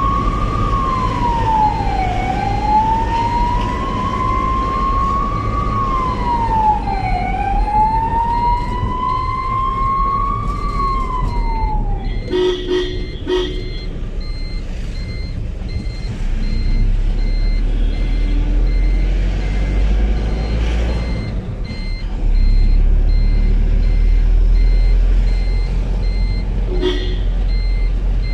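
Ambulance siren wailing, three slow rising and falling sweeps, that stops about twelve seconds in. Two short blasts follow, then steady engine and road rumble, with one more short blast near the end.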